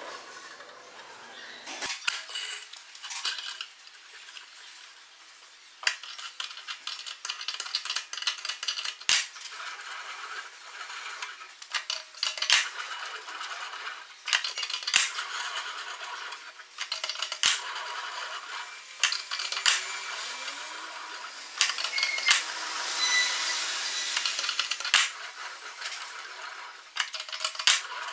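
Flat steel bar being rolled through a hand-cranked three-roller metal bender: steel scraping and clinking against the steel rollers, with irregular sharp clicks and clanks as the bar is drawn through and curved.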